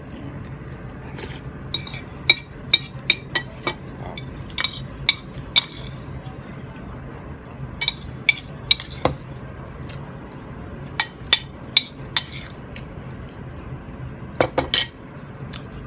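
Metal spoon and fork clinking and scraping against a ceramic soup bowl as the last of the soup is eaten, in scattered clusters of short, sharp clinks. A low steady hum runs underneath.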